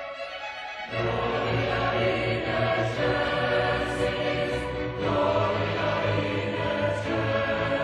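Choir singing with a string orchestra; the sound is thin for about the first second, then the full ensemble comes in.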